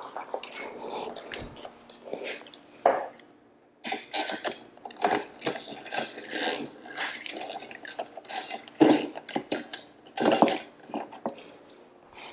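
Intermittent light metallic clinking and rattling as a garage door opener's steel rail, drive belt and carriage are handled on a concrete floor, busier in the second half after a short pause.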